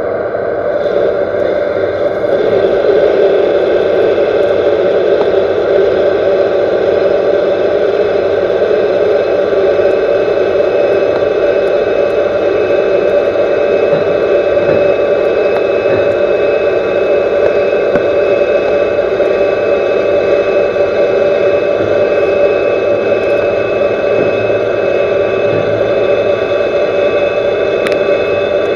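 Metal lathe turning a 4140 alloy steel shaft at a low spindle speed, a turning tool cutting the diameter under a coolant stream: a steady machine running sound with several steady tones, getting louder about two seconds in as the cut settles.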